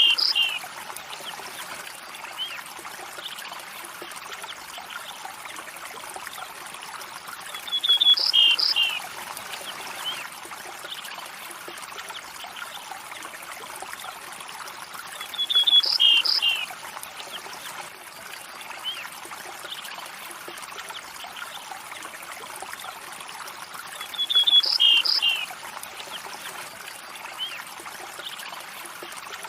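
A stream trickling and running steadily. Over it, a short chirping call, about a second long, comes four times about eight seconds apart, the same call each time, and is louder than the water; fainter single chirps fall in between.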